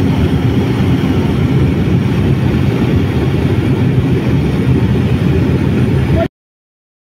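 Steady aircraft engine drone heard inside the cabin, loud and low-pitched, cutting off abruptly about six seconds in.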